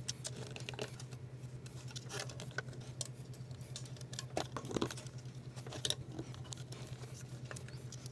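Small irregular clicks and scratches of a screwdriver and fingers working wires into the terminal screws of a plastic System Sensor smoke detector base, over a steady low hum.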